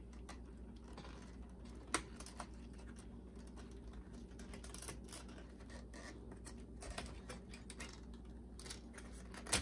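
Small clicks and scratches of hands working a wire loose from the back of a boombox's cassette deck, with a sharper click about two seconds in and another near the end, over a faint steady low hum.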